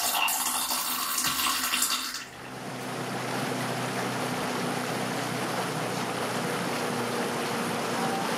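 A loud rushing noise that cuts off abruptly about two seconds in. It is followed by steady rain on a lake's surface, with a faint low hum under it.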